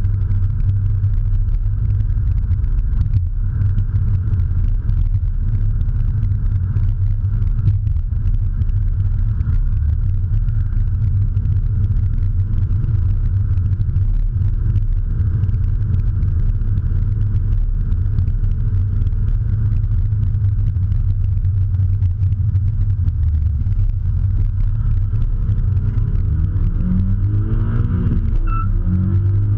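Honda Civic heard from inside the cabin while driving: a steady low engine and road rumble. Near the end the engine note rises as the car accelerates.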